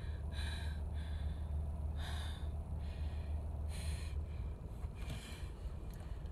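Steady low road and engine rumble inside a moving car's cabin, with four short breathy vocal sounds from the driver, roughly every one and a half seconds.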